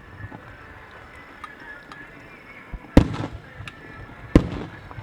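Aerial firework shells bursting: two loud booms about three seconds in and again a second and a half later, each followed by a rumbling echo and crackle.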